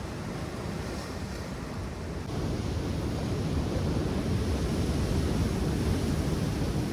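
Wind buffeting the microphone over the wash of ocean surf, a steady rushing noise that grows louder about two seconds in.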